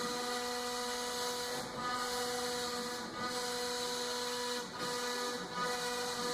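CNC router spindle running at a steady pitch while cutting, a constant whine over the hiss of the cut, dipping briefly a few times.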